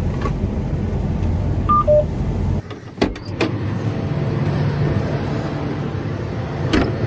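Combine harvester running with a steady drone, with two short electronic beeps, a higher then a lower one, about two seconds in. Partway through, the deep drone cuts off abruptly, a couple of sharp clicks follow, and a lighter steady hum carries on.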